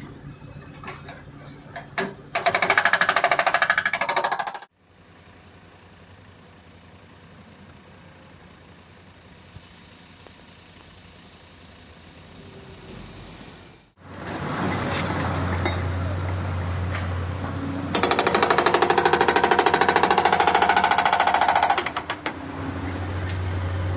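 Hydraulic breaker on a JCB 3DX backhoe loader hammering in rapid strokes, in two bursts of a few seconds each, about a quarter of the way in and again past the middle of the second half. The machine's diesel engine runs between the bursts, with a quieter, duller stretch in the middle.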